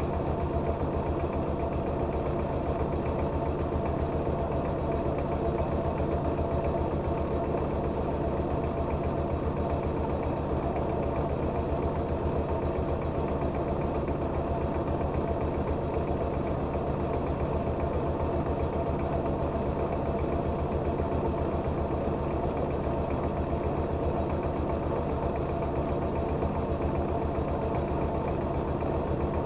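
Engine-driven rice milling machine running steadily, its engine and belt drive holding an even, unchanging pace with a fast low pulse.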